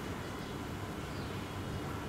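Steady low outdoor background rumble, with a faint short high chirp about a second in.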